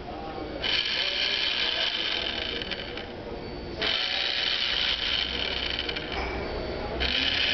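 Automatic soap dispenser's small geared pump motor whirring in repeated dispensing cycles, each about two and a half seconds long with a short pause between, starting three times as the dispenser is triggered over and over.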